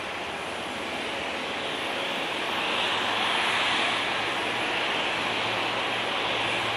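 Jet engines of a taxiing Boeing 787 airliner at low taxi power: a steady rushing whine with a faint low hum, swelling louder about three seconds in.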